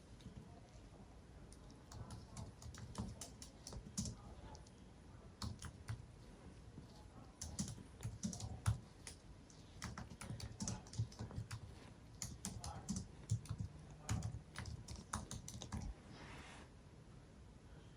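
Computer keyboard typing: irregular runs of light key clicks with short pauses between them.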